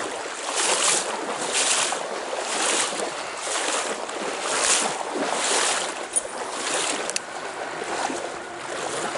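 Running and splashing water of a small trout stream, a steady rushing hiss with louder splashy surges about once a second for the first several seconds.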